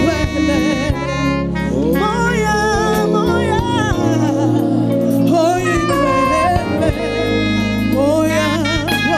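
A woman's solo gospel singing through a microphone: long held notes with vibrato over live instrumental accompaniment with sustained bass notes.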